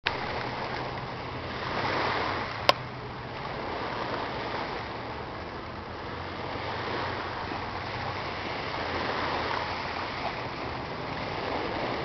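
Small waves washing in and lapping against shoreline rocks, a steady hiss of surf that swells gently about two seconds in and again around nine seconds. A single sharp click comes a little under three seconds in, the loudest moment.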